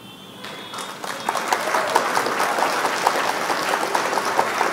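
Recorded crowd applause used as a sound effect, coming in about half a second in and swelling to full over the next second.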